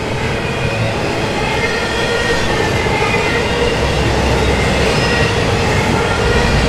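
Double-stack intermodal container train's well cars rolling past: a steady rumble of steel wheels on rail, with thin high squealing tones from the wheels coming and going, growing a little louder toward the end.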